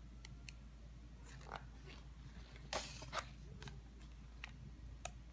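A picture-book page being turned and pressed flat by hand: faint paper handling, with a brief rustle about halfway through and a few light ticks.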